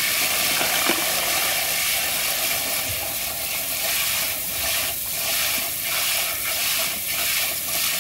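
Garden hose spray nozzle jetting water onto a plastic toy figure and into a tub of muddy water, rinsing the mud off: a steady, loud hiss of spray that starts abruptly.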